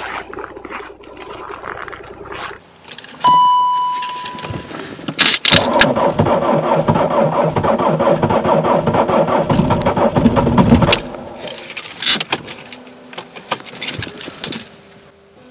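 A car's electronic chime sounds once, a single clear tone, then the starter cranks the cold 2001 BMW E39 520d's M47D20 four-cylinder diesel for about five seconds. The cranking stops without the engine catching, and a few light clicks follow.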